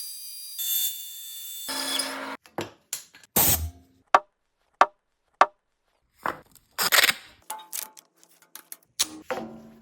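Woodworking sounds chopped into short bursts by quick edits: brief stretches of sawing and tool noise, and three sharp clicks a little over half a second apart near the middle, separated by abrupt silences.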